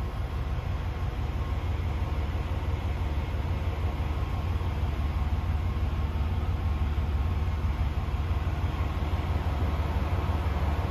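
The 480 hp PACCAR MX-13 straight-six diesel of a 2017 DAF CF480 tractor unit idling steadily, heard from inside the cab as an even low drone.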